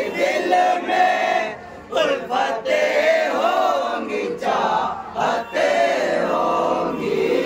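Several men's voices chanting a Muharram manqabat lament together, without instruments, in long wavering melodic phrases with a brief pause about two seconds in.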